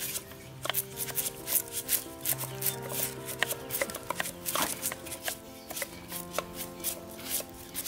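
Knife chopping meat on a board: quick, irregular strokes, several a second, over background music with held notes.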